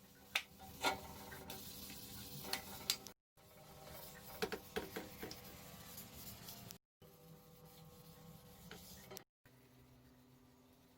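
Sandpaper rubbing by hand on a metal bike frame, a faint scratchy scraping with scattered light clicks and knocks, in several short takes that cut off abruptly.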